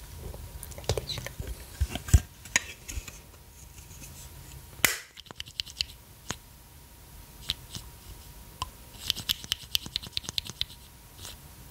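Fingers and nails tapping, scratching and handling hard plastic makeup packaging: a glitter eyeshadow palette, then a heart-shaped faceted lip gloss bottle. Scattered sharp clicks, one loud click about five seconds in, and a quick flurry of taps near the end.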